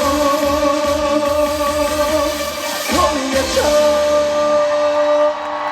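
Live pop song with singing and band accompaniment coming to its end: the drum beat drops out about four seconds in under one long held note, and the music stops shortly before the end.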